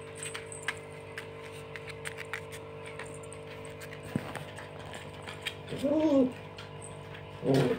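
A puppy gives a short bark about six seconds in and another near the end. Under them runs the steady hum of an electric fan, with light clicks from the play.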